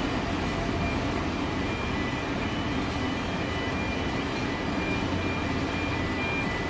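Heavy diesel machinery of a floating crane unloading coal, running with a steady low drone. Faint high beeps come and go over it.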